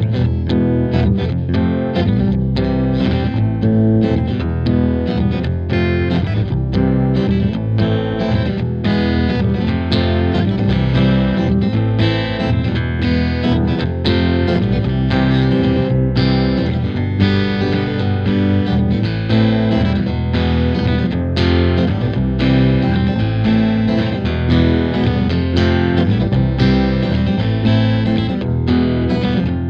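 Background music: distorted electric guitar with a steady beat.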